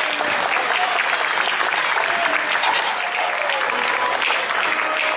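Audience applauding steadily, with faint voices underneath.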